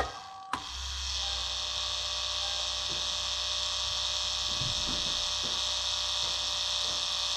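Two sharp clicks, then about a second in the electric accumulator pump motor of a Lexus hydraulic brake booster (brake master cylinder) unit starts and runs steadily with a high whine, charging the accumulator and drawing fluid from the reservoir after the system has been reset.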